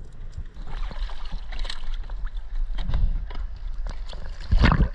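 Water slapping and sloshing against the hull of a small inflatable boat, with a heavy thump near the end.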